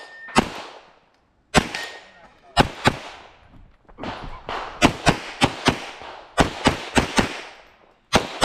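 Pistol shots fired in quick pairs, about fourteen in all, each with a short ringing tail. There is a brief pause about a second in, and the pace quickens in the second half.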